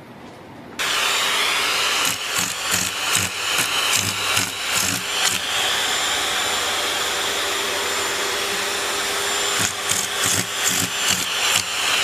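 A loud, steady machine whir that starts abruptly about a second in, with irregular knocks and clatter over it.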